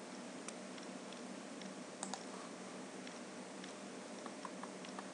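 A few faint, sharp computer mouse clicks over a steady low hiss.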